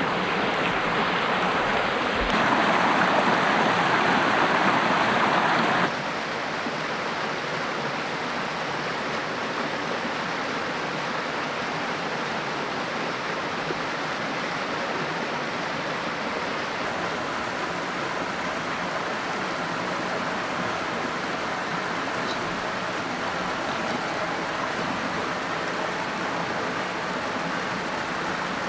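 Creek water rushing steadily. For a few seconds near the start the rush is louder and brighter, then it drops abruptly to a lower, even level.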